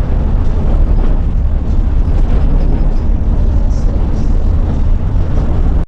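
Loud, steady low rumble of a moving chicken bus, its engine and road noise heard from inside the cabin.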